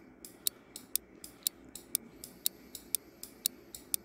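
Quiz countdown-timer sound effect: clock ticks at about four a second, keeping time with the countdown.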